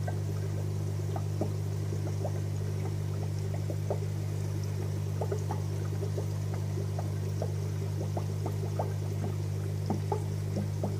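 Air-driven aquarium sponge filter bubbling: a stream of small irregular bubble pops and trickling water over a steady low hum.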